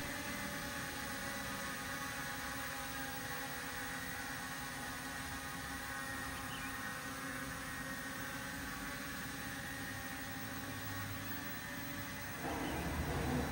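Rox X9 mini drone hovering, its propellers giving a steady whirring hum. It gets a little louder near the end.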